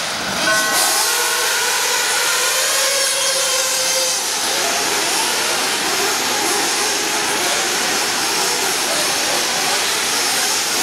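Radio-controlled off-road buggies racing: a steady high whine and hiss of their motors and tyres on the dirt track, with a few steady tones in the first second and a half.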